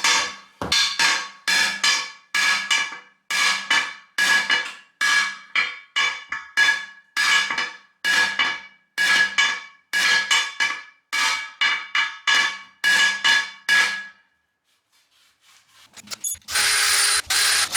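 Hammer blows on a steel wheel rim, beating a bent rim back into shape: a steady run of about two ringing metallic strikes a second that stops about fourteen seconds in. Near the end comes a loud, short rushing noise.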